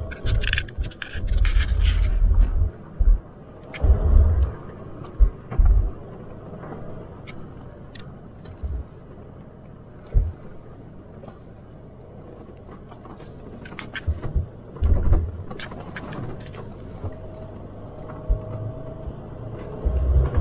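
Off-road vehicle driving over rough trail: a steady low rumble broken by heavy thuds and jolts, with scattered clicks and rattles. The thuds come in clusters in the first few seconds and again about two-thirds of the way through.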